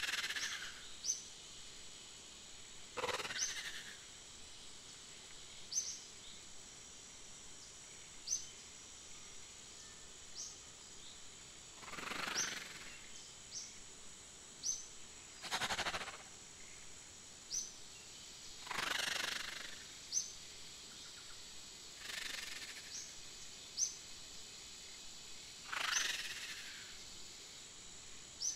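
Outdoor nature sounds with a steady high insect drone. Short high chirps come every two or three seconds, and a breathy hiss-like whoosh sounds about seven times, at uneven gaps.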